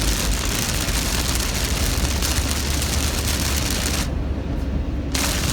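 Heavy rain pounding on a car's roof and windshield, heard from inside the moving car over road noise and a deep rumble. The hiss drops away for about a second near the end.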